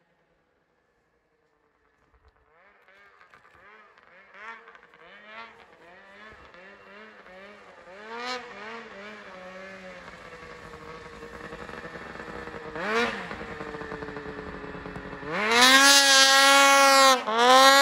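Ski-Doo 600RS race snowmobile's two-stroke engine revving in bursts as the sled rides over snow, starting after about two seconds of near silence. It is faint at first and grows steadily louder as the sled comes closer; near the end it is very loud at high revs, with a short lift off the throttle between two long pulls.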